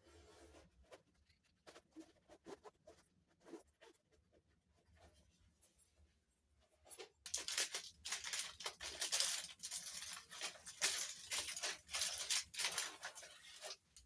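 Plastic packaging rustling as items are unpacked: scattered light rustles and clicks, then from about seven seconds in a long stretch of loud, dense rustling and tearing.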